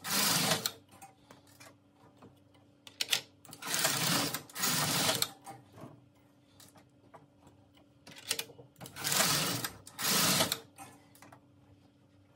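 Double-bed knitting machine carriage, coupled to the ribber carriage, slid across the needle beds to knit jacquard rows: rushing, rattling passes under a second long, one ending just after the start, then two quick back-and-forth pairs. A single sharp click comes shortly before each pair.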